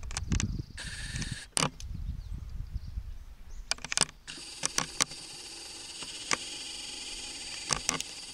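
Camcorder zoom motor whining in steady stretches, briefly about a second in and then from about halfway to the end, as the lens zooms in and back out. Scattered sharp clicks, with a low rumble over the first few seconds.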